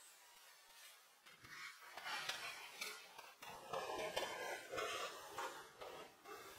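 Broom sweeping snow off a roof: repeated brushing, scraping strokes that start about a second and a half in and come roughly every half second.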